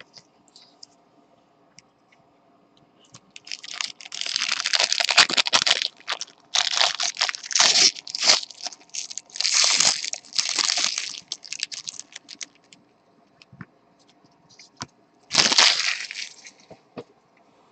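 Plastic packaging crinkling and rustling in several bursts as trading card packs are opened and the cards handled, a long stretch from about three to eleven seconds in and a short one near the end.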